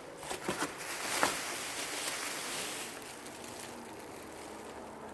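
Plastic wrapping on a dress crinkling and rustling as it is handled, with a few sharp crackles in the first second or so, then a hissy rustle that dies down about halfway through.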